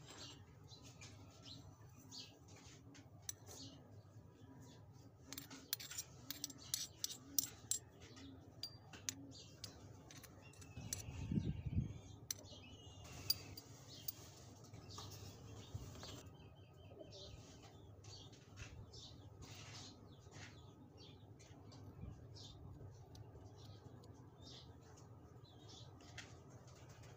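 Faint clinks and taps of a small steel tray and metal spoon against a ceramic bowl as chopped vegetables and spice are tipped in, with a quick run of sharp clicks early in the first third and a soft thump partway through. Birds chirp faintly in the background.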